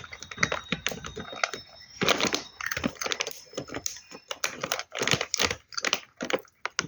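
Crunchy food being bitten and chewed: a dense, irregular run of sharp crunches and cracks, several a second.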